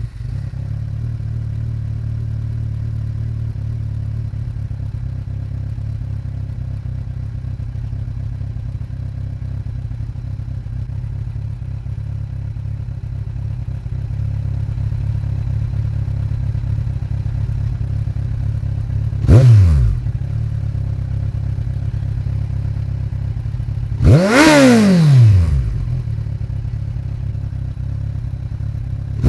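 2015 Kawasaki Z1000's inline-four idling steadily through a Vance & Hines slip-on exhaust, just after a cold start. Twice the throttle is blipped in a quick rev that rises and falls: a short one about two-thirds of the way in and a longer one near the end.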